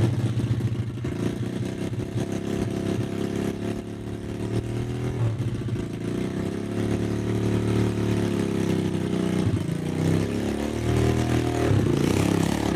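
Pit bike engine running and revving, its pitch rising and falling.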